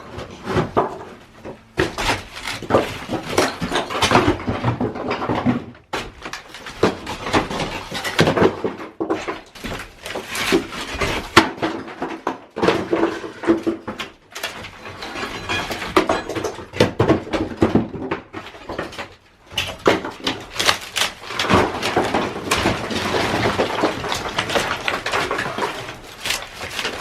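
Lath-and-plaster demolition: dense, irregular cracking, scraping and knocking as plaster and wood lath are broken and pulled from the wall, with debris falling.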